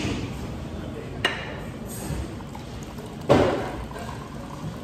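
Diet Coke poured from a can into a glass, starting suddenly and loudly a little after three seconds in and tapering off. A single sharp click comes about a second in.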